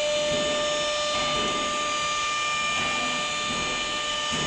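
A CNC router running a job: a steady high-pitched whine with several overtones, over a fainter, shifting mechanical noise.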